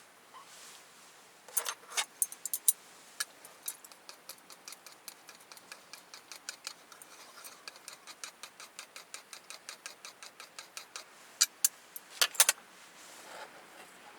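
Small sharp clicks: a few loud ones at first, then a steady run of about four a second, and a quick cluster of louder clicks near the end.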